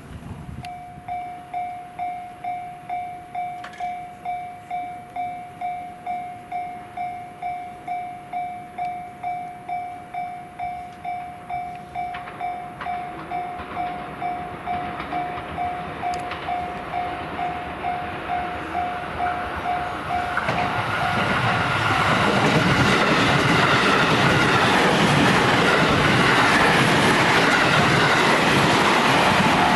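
Level crossing's electronic warning bell starts about a second in and rings in a steady beat, about three strikes every two seconds. From about 20 seconds in, a JR West commuter electric train comes up and passes over the crossing. Its running and wheel noise grows loud and drowns out the bell.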